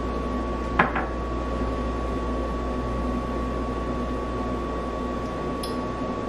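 Steady room hum with a constant thin high tone, and two quick sharp taps about a second in, with a faint tick near the end.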